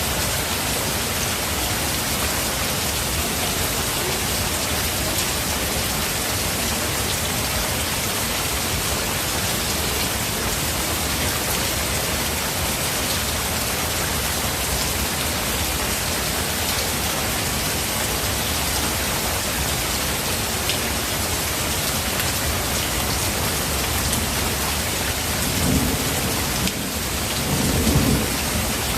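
Steady heavy rain hissing without a break, with thunder rumbling twice near the end, the second rumble the louder.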